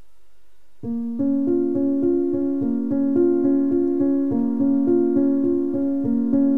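Background music on a piano-like keyboard, repeated chords in a steady rhythm, coming in about a second in over a faint low hum.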